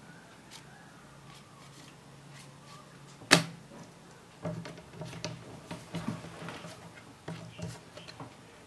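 Handling noise of small paper and card items: one sharp click about three seconds in, then a run of light knocks, taps and rustles.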